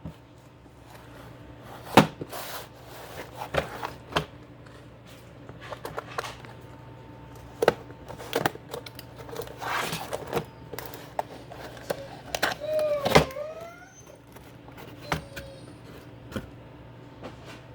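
Keyboard box and packaging handled by hand: scattered knocks, clicks and thumps with short bouts of rustling, and a brief squeak about thirteen seconds in. A low steady hum sits underneath.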